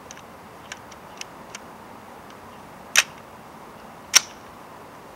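A few light metallic clicks, then two sharp, louder clicks about a second apart, from handling the AR-15 rifle and its cartridges while getting ready to fire.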